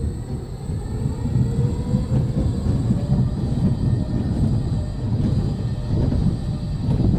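SBF Visa spinning coaster car rolling along its steel track with a steady low rumble that builds over the first second or so. A faint rising whine is heard in the first few seconds.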